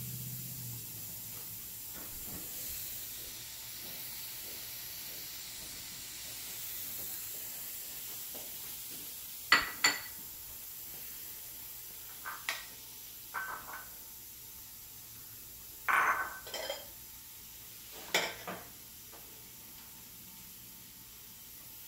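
Waring Pro Belgian waffle maker cooking with its lid shut: a faint steady hiss of steam and sizzling batter. From about halfway through, a few short, sharp clinks and knocks.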